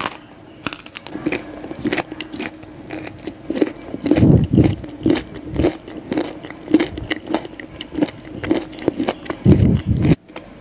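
Close-miked mouth sounds of a person chewing a mouthful of rice and chicken liver curry: a run of wet smacks and clicks, with two louder, deeper bursts about four seconds in and just before the end, over a faint steady hum.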